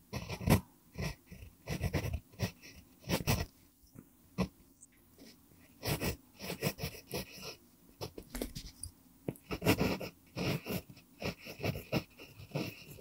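Pentel PG5 mechanical pencil with an mpingo wood barrel writing cursive on lined paper: irregular scratchy strokes of pencil lead on paper, several a second, with short pauses between words.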